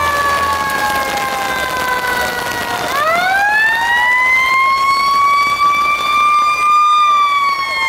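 Fire engine siren wailing: its pitch slowly falls, then about three seconds in it drops and sweeps back up, rising gradually and levelling off before starting to fall again near the end.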